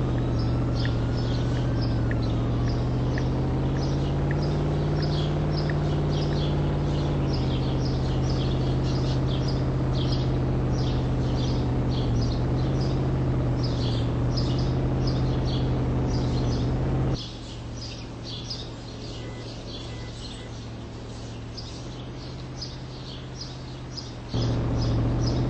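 A steady low mechanical hum, like an engine running at idle, with birds chirping over it again and again. The hum drops away suddenly about two-thirds of the way through and comes back just before the end, while the chirping carries on.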